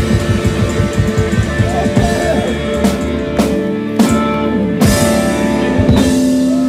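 Live rockabilly band with electric guitar and drum kit playing loud: a fast beat for about two seconds, then a held chord punctuated by several sharp drum hits, like a song's closing flourish.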